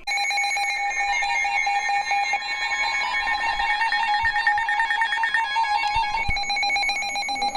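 Emergency Alert System attention signal: a harsh, steady two-tone alarm held unbroken for about eight seconds, announcing a Severe Thunderstorm Warning.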